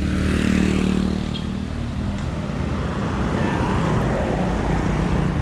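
A motor vehicle engine running steadily amid road traffic noise.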